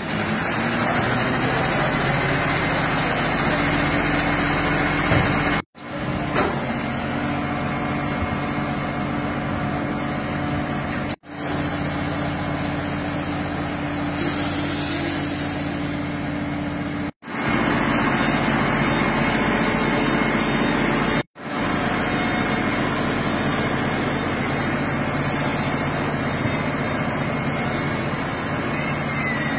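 Fire truck's engine running steadily, a constant low hum, while the truck's ladder is in use; the sound drops out sharply four times.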